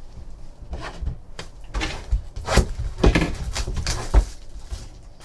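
Cardboard trading-card box and packs being handled on a tabletop: a string of knocks, taps and rustles, the loudest knocks falling between about two and a half and four seconds in.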